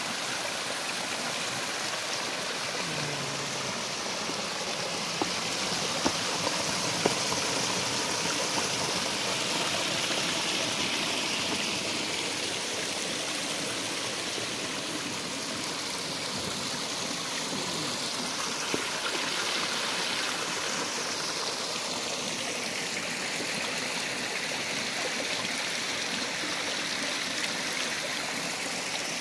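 Small rocky mountain stream splashing and trickling down a little cascade between boulders, a steady rush of water. A few brief clicks stand out about five to seven seconds in and again later.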